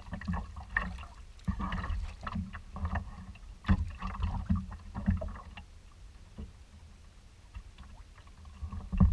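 Water splashing and sloshing against a kayak as it is paddled through chop, in irregular splashes that thin out for a few seconds past the middle and pick up again near the end, over a steady low rumble of wind on the microphone.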